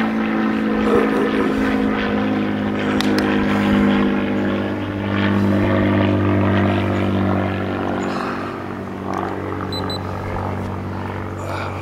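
K&B .61 two-stroke glow-fuel model airplane engine, modified by C.F. Lee, running steadily on a test stand and spinning a wooden propeller. It gets a little quieter from about eight seconds in.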